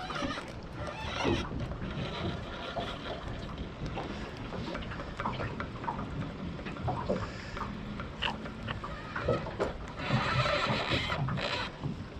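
Wind rumbling on the microphone, with scattered clicks and knocks of handling, and a louder stretch of rustling noise near the end.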